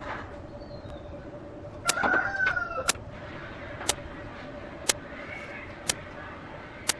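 A fowl calls once, a short gliding call about two seconds in, over sharp clicks that come evenly about once a second and a faint steady hum.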